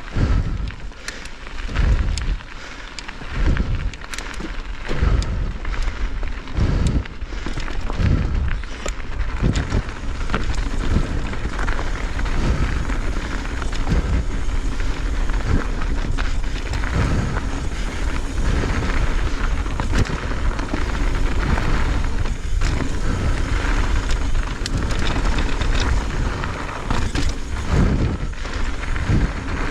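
Pivot Firebird mountain bike riding fast down a dirt trail: tyres on dirt, the chain and frame rattling with many short clicks over bumps, and wind rumbling on the microphone in low gusts during the first ten seconds or so before the noise turns steadier.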